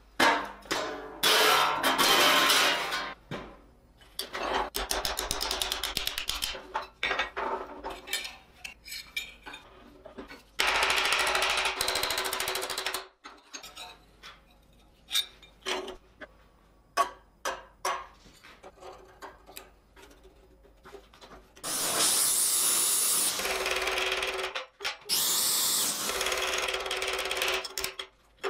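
Metalworking on sheet steel in quick cuts: abrasive scrubbing of rusty steel sheet, runs of sharp strikes on steel held in a vise while a hinge is formed around a rod, and two long stretches of steady grinding-like abrasive noise, about a third of the way in and near the end.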